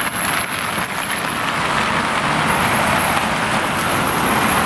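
Steady road vehicle and traffic noise, with a faint high-pitched whine that comes and goes.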